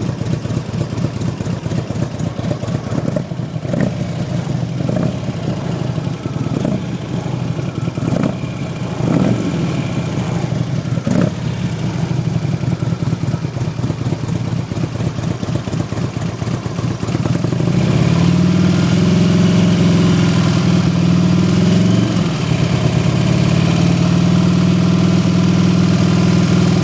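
2006 Harley-Davidson CVO Ultra Classic's Twin Cam V-twin idling with the lifter noise the owner is recording. The throttle is blipped briefly several times, then held at higher revs from about two thirds of the way in, with one short dip.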